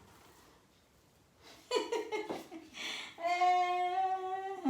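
A woman's voice holding one long, steady note near the end, after a moment of near silence and a few light clicks from handling the steamer's plastic parts.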